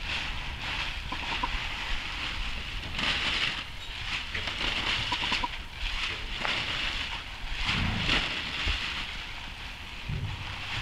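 Blue plastic tarp rustling and crinkling in repeated bursts as it is rubbed over a horse's back and waved around beside her.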